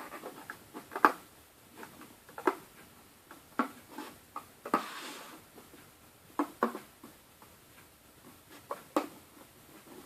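Scattered sharp clicks and taps, about a dozen, with a short rustle near the middle, as a rubber-band bracelet is pulled off the pins of a plastic loom and the bands snap free.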